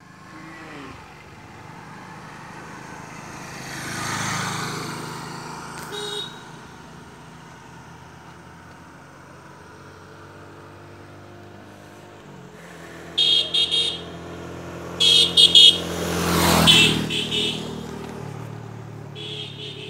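Motorcycle engine idling steadily, with vehicles passing twice. Short repeated horn beeps come in quick clusters about two-thirds of the way in and again near the end.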